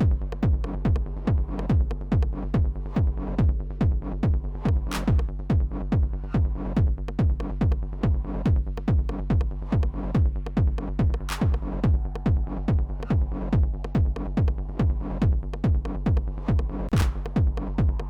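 Techno loop playing back from Ableton Live: a four-on-the-floor kick drum about twice a second over a steady low bass tone, with hi-hat-like ticks between the kicks. A bright, sharp drum hit lands about every six seconds as Roland TR-909 drum hits are programmed into the pattern.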